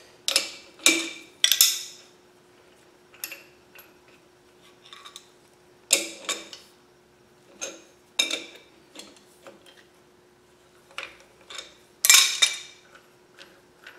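Steel adjustable wrenches clinking and clanking against each other and the installer's nut as they are taken off and handled: about a dozen sharp metallic hits with short ringing, spread out with pauses, the loudest cluster near the end. A faint steady hum runs underneath.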